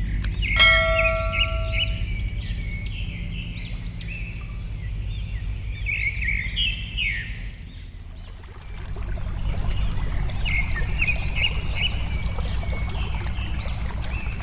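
Steady flowing water with many songbirds chirping over it. A single bell-like ring sounds about half a second in and fades out by about two seconds. The water briefly drops away at about eight seconds, then returns fuller.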